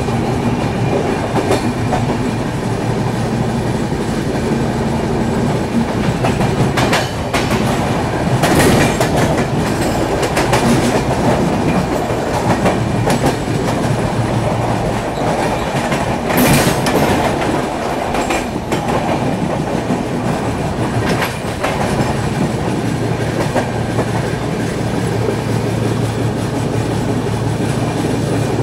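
Two passenger trains running side by side at speed, heard from an open coach doorway: a steady, loud rumble of wheels on rail, with sharp clacks of wheels over rail joints that stand out about eight and sixteen seconds in.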